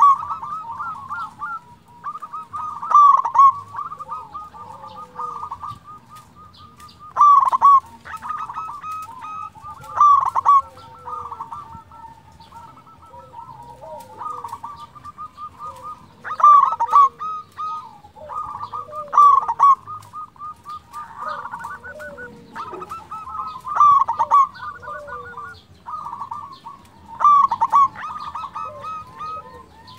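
Zebra dove (perkutut) cooing: a rapid run of high, clipped coos given in phrases that swell to a peak every few seconds.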